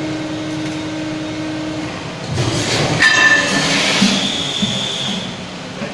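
Servo-hydraulic injection moulding machine at the end of a bucket cycle: a steady pump hum stops about two seconds in, then the mould opens with a rush of hydraulic noise and a sharp metallic knock with a brief ring about three seconds in, followed by a hiss for a couple of seconds as the moulded bucket is freed from the core.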